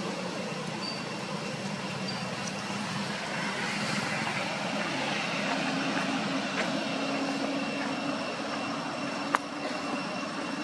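Steady background noise with a faint low hum, broken by a single sharp click about nine seconds in.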